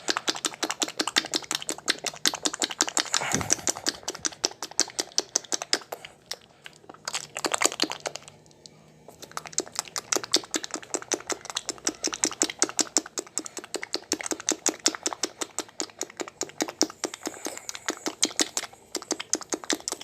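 Mouth sound effect imitating the wet slapping of masturbation, made with the hands, cheeks and saliva: fast, steady wet clicking, with short breaks about six and eight seconds in.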